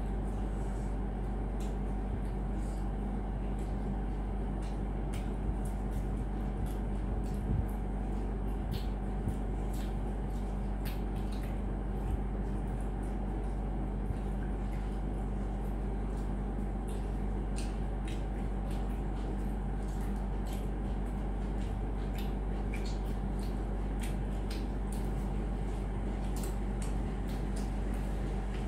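A steady low hum runs under many small, scattered crackles and clicks: crisp pani puri shells being cracked open with the fingers and chewed.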